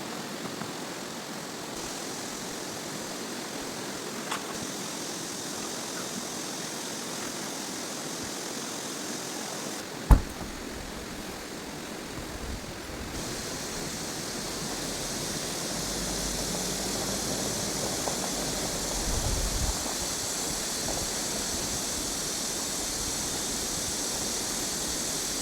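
Steady rushing water noise, with one sharp knock about ten seconds in.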